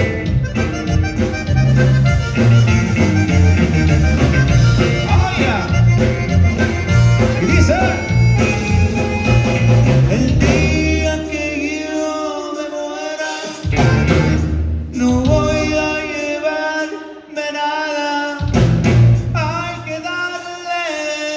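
Live conjunto band playing, with button accordion, electric bass, guitar and drums. The bass and kick drop out twice for a few seconds in the second half, leaving the accordion and guitar on top.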